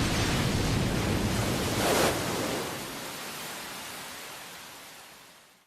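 A loud rushing, rumbling noise effect, with no tone in it, that swells briefly about two seconds in and then fades away over the next few seconds.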